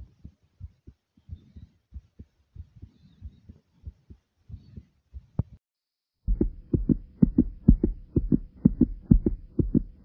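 Human heartbeat thumping hard after exercise, picked up close to the chest, with heavy breathing between the beats. After a short break about five and a half seconds in, a louder, faster run of heartbeats starts, with a faint steady hum underneath.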